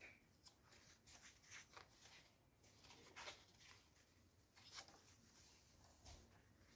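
Faint rustles and swishes of paper pages being turned by hand in a handmade junk journal, several soft page turns one after another.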